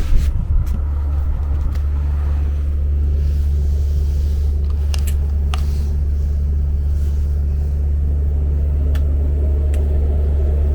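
Steady, loud low engine drone running evenly, with a few faint, irregular clicks over it.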